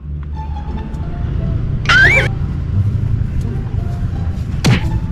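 A vehicle engine running steadily with a low rumble. About two seconds in comes a loud, wavering whistle-like sound, and near the end a sharp falling swoop.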